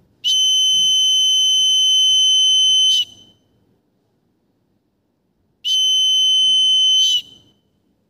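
Fire-alarm buzzer sounding a steady high-pitched tone twice: about three seconds, then after a pause about a second and a half. It is set off by the gas sensor detecting smoke.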